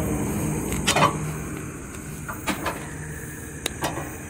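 A motor vehicle running, its steady low hum slowly fading, with several sharp clicks and knocks over it.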